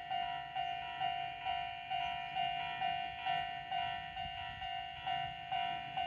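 Japanese level crossing warning bell ringing its repeated electronic ding, a little over two strikes a second, from a crossing alarm that is malfunctioning.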